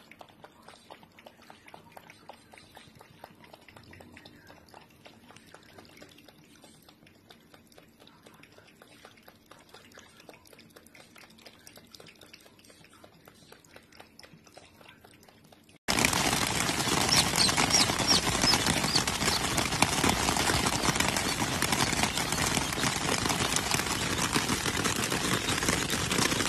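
Faint quick clicks of cats lapping water from a basin. About two-thirds of the way through, the sound switches suddenly to loud, steady rain falling on a clear plastic umbrella.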